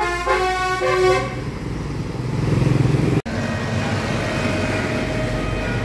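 Bus telolet horn, a multi-tone musical horn, playing a quick stepped melody of several notes that ends about a second in. Vehicle engine and traffic noise follow, growing louder, then break off suddenly. After that comes steady traffic noise with a faint held tone.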